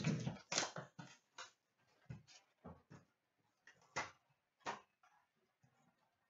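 A cardboard trading-card box being handled and opened by hand: an irregular run of short rustles, scrapes and taps, the loudest just after the start and about four seconds in.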